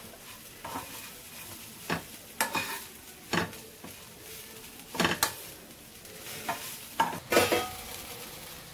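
A spoon stirring and scraping in a cooking pan, a series of separate scrapes and knocks over a low, steady sizzle of food frying.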